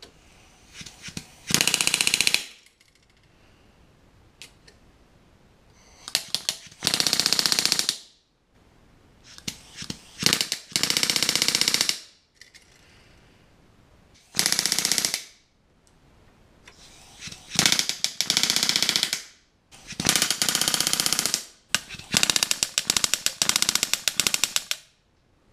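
Pneumatic rivet gun hammering in about seven bursts of a second or so each, with short taps before some. It is driving the small NAS1097-3 rivets that fix nut plates to an aluminium elevator trim-tab servo bracket, bucked against a bar held in a vise.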